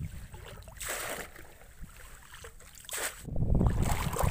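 Water sloshing and splashing as a person wades through shallow muddy floodwater, with brief splashes about a second in and near three seconds, and a louder low rumble near the end.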